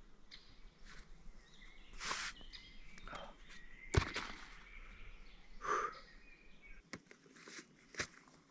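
Scattered rustling and two sharp clicks, about four seconds apart, over faint birdsong.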